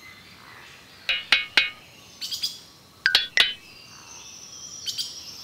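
Birds chirping: quick clusters of short, sharp chirps about a second in and again around three seconds, then a long, thin whistled call that falls slowly in pitch near the end.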